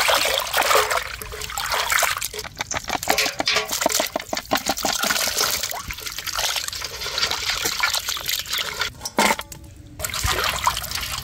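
Water sloshing and splashing in a metal basin as a hand swishes and rubs turkey bones through turmeric water to wash them. It comes in quick, uneven strokes and goes briefly quieter near the end.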